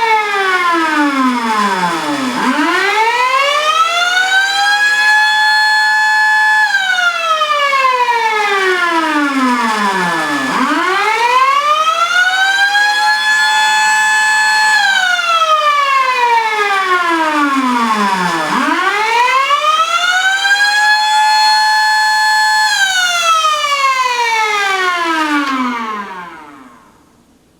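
Miniature Thunderbolt tornado siren sounding the attack signal, running on newly replaced collector rings. It wails in about three cycles of roughly 8 seconds: the pitch falls low, rises to a held top for a couple of seconds, then falls again, and it winds down and stops near the end.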